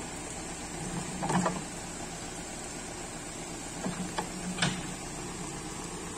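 Backhoe loader's diesel engine running steadily, with a few sharp clanks: one about a second and a half in, then three close together around four seconds in.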